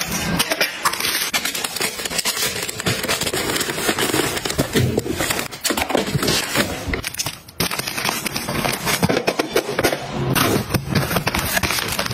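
Plastic-wrapped tissue packs crinkling and rustling as they are handled, with many sharp crackles and clicks, and a short break about seven and a half seconds in.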